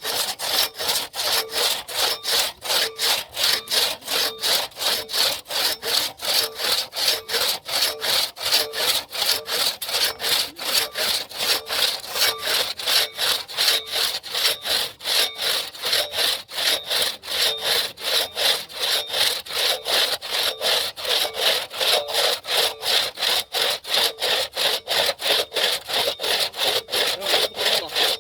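Hand saw cutting through tree wood in steady back-and-forth strokes, about three a second.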